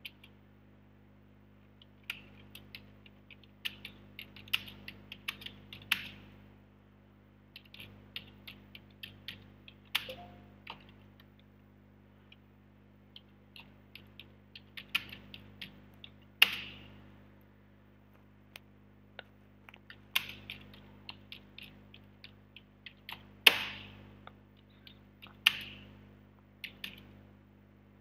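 Typing on a computer keyboard: irregular runs of key clicks broken by short pauses, with a few louder single key strikes, over a faint steady low hum.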